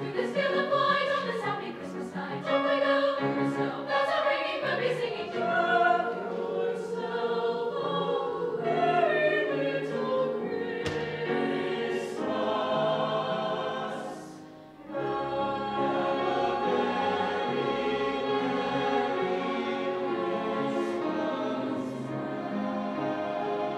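A high school choir singing a concert piece. About two-thirds of the way through the music dips briefly, then resumes with the choir singing over a string orchestra.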